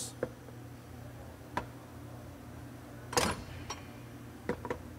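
Greenerd hand arbor press seating new U-joint bearing cups in a driveshaft yoke: a few scattered short clicks, with the loudest, a brief clunk, about three seconds in and two quick clicks near the end.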